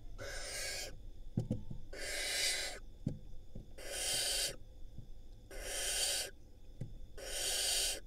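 Barn owl nestlings giving their rasping hiss calls, the food-begging 'snore' of young barn owls: five long hisses, each just under a second, coming about every second and a half to two seconds. A few faint knocks sound between the hisses.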